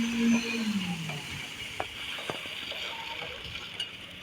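A motor's steady hum drops in pitch and dies away about a second in. After that there is only a noisy background hiss, with two short knocks.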